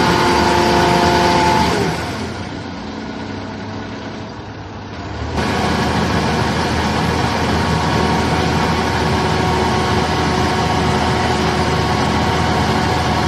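Hook-lift garbage truck's diesel engine running under load with a steady hydraulic whine while the container is pulled onto the truck. The whine slides down and fades about two seconds in and the engine goes quieter, then about five seconds in the engine sound comes back loud and stays steady.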